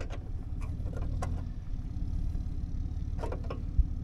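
An engine idling steadily, with a few light metallic clicks and taps of hand tools on the machine.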